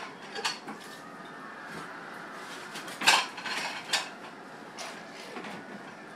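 Kitchen clatter: a handful of sharp knocks and clinks, the loudest about three seconds in, with lighter ones shortly after the start and around four seconds.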